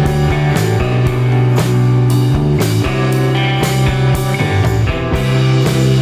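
Instrumental background music with a steady beat, about two beats a second.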